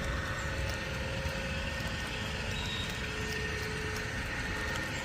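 Steady hum of road traffic with faint light ticks over it, no single event standing out.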